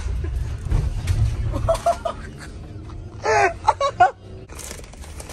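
Low rumble of a Ford Transit van's engine and tyres heard from inside the cabin, which drops away about two seconds in. It is followed by brief voices and, near the end, faint crinkling of a snack bag.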